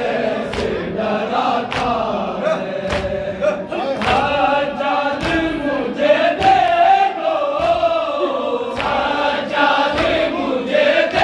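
Group of male mourners chanting a Shia noha (Urdu lament) together, with sharp chest-beating (matam) strikes keeping a beat about once a second.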